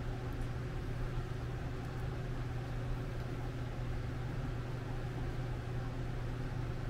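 A steady low hum of background machinery, with no distinct knocks or clicks standing out.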